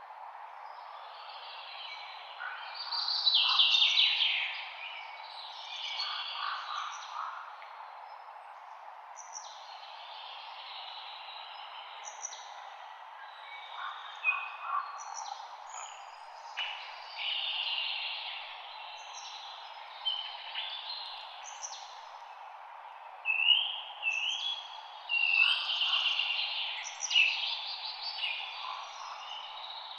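Several songbirds singing and chirping in overlapping, varied phrases, busiest about three to four seconds in and again over the last several seconds, over a steady soft background hiss.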